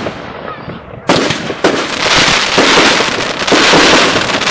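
Consumer firework cakes firing shots that burst overhead. About a second in a sudden, loud, dense rush of crackling and bangs starts and keeps going.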